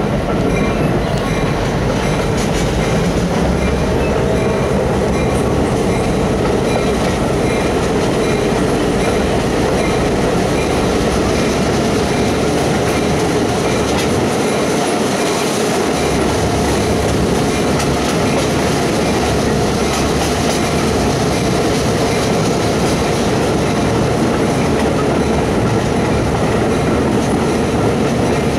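Steady running noise of a passenger train heard from on board: wheels rolling on the rails and the car's movement, continuous and loud.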